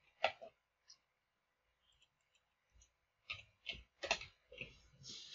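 Computer keyboard keystrokes and mouse clicks: a couple of sharp clicks at the start, a pause, then a quick run of clicks in the last two seconds.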